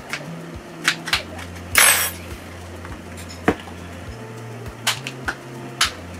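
Sharp plastic clicks and taps from a Redmi smartphone being handled and pried at with a plastic pick to take it apart, with a short, louder scraping rasp about two seconds in.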